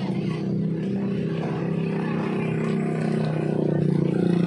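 Motorcycle engine of a sidecar tricycle running steadily at low speed, a constant hum.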